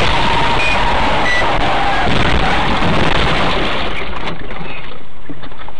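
Steady, loud rushing noise of a moving vehicle as picked up by a dash camera, turning duller a little past four seconds.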